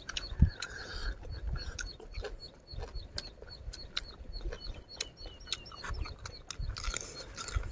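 Close-miked eating: chewing and wet mouth clicks as pork intestines and fresh vegetables are eaten, with a louder crunchy patch near the end. Behind it, a small high chirp repeats evenly about four times a second.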